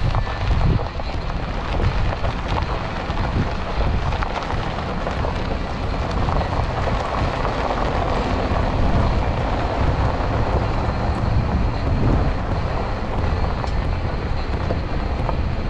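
Wind rushing over the microphone on top of the low rumble of a Nissan Titan pickup driving a bumpy dirt road, with steady, uneven road and tyre noise.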